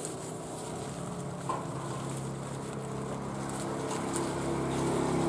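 A motor engine running steadily, getting louder through the second half, with a single click about a second and a half in.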